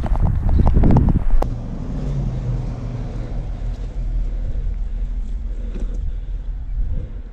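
Quick running footsteps for about a second, then a single sharp click, then a steady low rumble of wind on the microphone as the movement stops.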